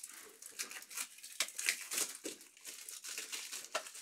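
Plastic wrapping on sealed trading-card boxes and packs crinkling as it is handled and unwrapped, an irregular run of crackles and rustles.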